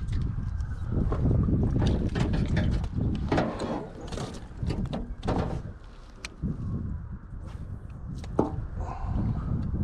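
Wind buffeting the microphone, with scattered knocks and clatter from handling, and one sharp click about eight seconds in.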